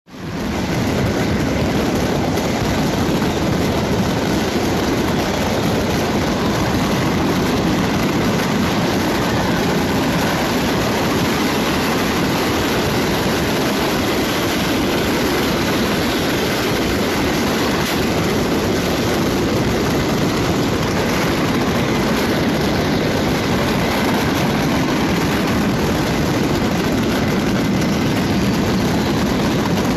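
A burning stockpile of fireworks going off nonstop: hundreds of bangs and crackles so close together that they blend into one steady din.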